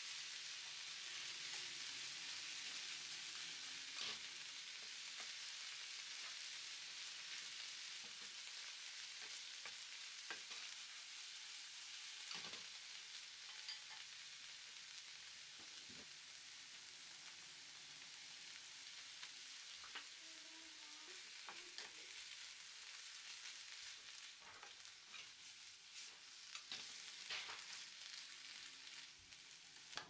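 Broccoli florets sizzling in a frying pan, a steady hiss that slowly dies down. Now and then a wooden spatula knocks lightly against the pan as it turns the broccoli.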